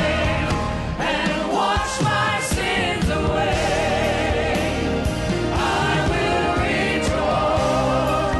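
Gospel choir singing a slow worship song with vibrato, over sustained bass and keyboard accompaniment.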